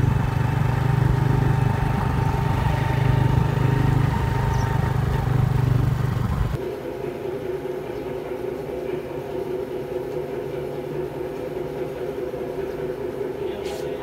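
Motorcycle engine running steadily under way, with road and wind noise. About six and a half seconds in it cuts abruptly to a quieter, steady machine hum with a few clear tones.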